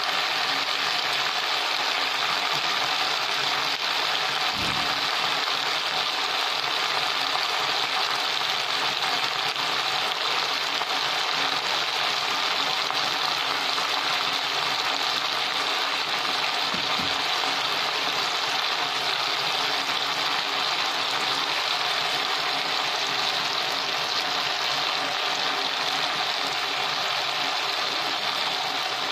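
Mixed vegetables sautéing in oil in a pot, with a steady, even sizzle.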